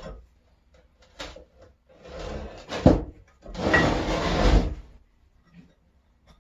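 Metal vise parts scraping and clunking together as the vise is put back together: a short scrape ending in a sharp knock about three seconds in, then a longer scrape.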